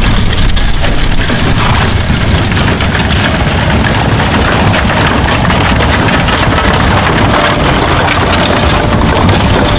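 Horse-drawn covered wagons and horses passing close by on a dirt trail: a steady, loud rumble of wooden-spoked wagon wheels rolling, mixed with hooves on the dirt.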